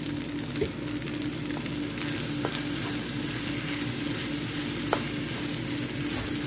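Fried rice with diced sausage sizzling in a hot nonstick skillet as it is stirred with a wooden spoon, with a few light knocks of the spoon against the pan. A steady low hum runs underneath.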